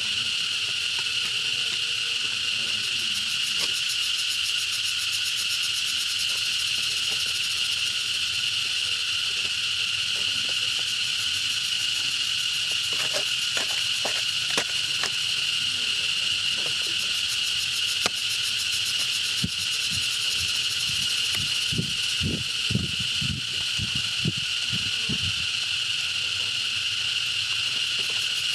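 A steady insect chorus: an unbroken, high-pitched buzzing drone. A few soft, low knocks and rustles come in the second half.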